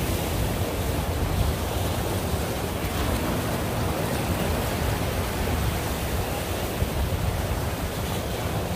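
Steady wind rumbling on the microphone over the wash of ocean surf against the rock jetty.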